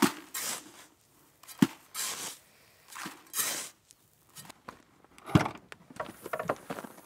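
A trowel scooping dry sand into a builder's bucket: several short gritty scrapes and pours with a knock against the bucket. Near the end a loud thump and a run of small clicks and rattles as a car's tailgate is opened.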